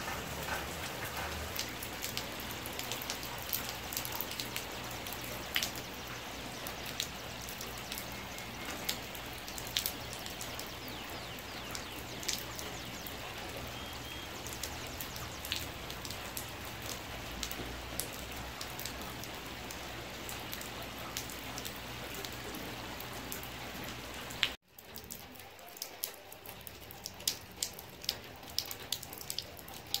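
Steady rain falling, with many scattered sharper drops. A little before the end it cuts out abruptly, then comes back quieter with separate drips standing out.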